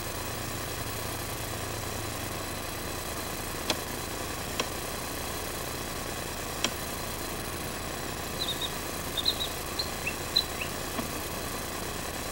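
A motor or engine running steadily, with a few sharp clicks in the first half and a scatter of short high chirps in the last third.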